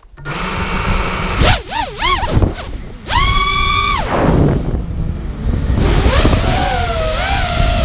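FPV racing quadcopter's brushless motors spooling up at takeoff, their whine swooping up and down with the throttle, holding one high steady whine for about a second midway, then dropping and wavering, over rushing wind from the onboard camera's microphone.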